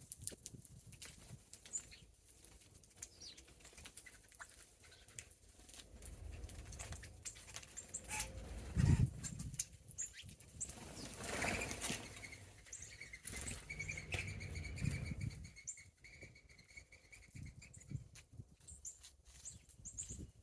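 Small birds feeding in snow: wings fluttering as they come and go, with short high chirps and many light clicks. A dull thump about halfway through is the loudest sound.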